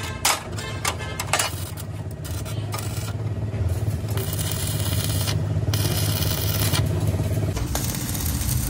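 Cut steel plate pieces clinking and knocking together as they are handled, a few sharp knocks in the first second and a half. Then a steady electric hum with stretches of stick-welding arc crackle and hiss, louder from about halfway.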